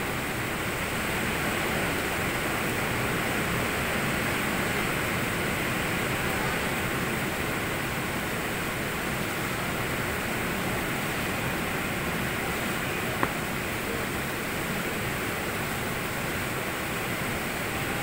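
Steady, even background hiss, with one faint click a little past the middle.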